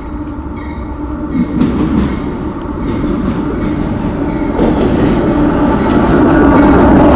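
Diesel-electric freight locomotives at the head of a long grain train approaching and pulling alongside. Their engine rumble and rail noise grow steadily louder.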